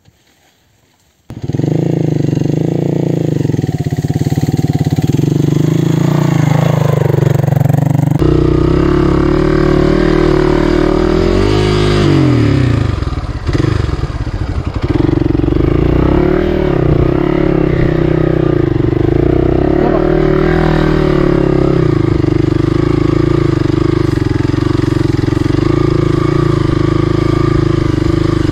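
Hero Xpulse 200's single-cylinder engine running as the motorcycle is ridden along a dirt trail. The engine cuts in abruptly about a second in, and its note rises and falls around the middle as the throttle changes.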